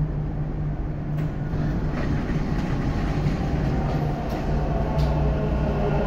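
Dubai Metro train pulling into the station: a steady electric hum and rumble that grows a little louder as it nears, with a few faint clicks.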